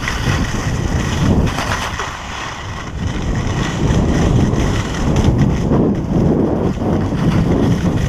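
Loud, steady wind rushing over an action camera's microphone while skiing downhill, mixed with the hiss and scrape of skis on packed snow.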